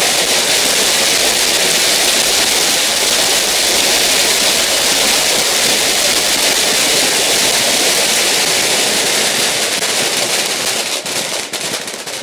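Massed firecrackers bursting so fast that the cracks blur into one loud, continuous crackle. Near the end the barrage thins into separate bangs.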